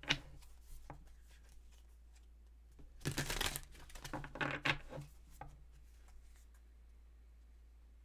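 A deck of tarot cards shuffled by hand: a few light clicks at the start, then a dense stretch of riffling and card-on-card rustling from about three to five seconds in, dying away to a faint steady hum.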